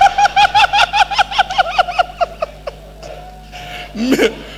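A high-pitched laugh: a quick run of short 'ha-ha' syllables, about six a second, sliding slightly down in pitch and trailing off after about two and a half seconds.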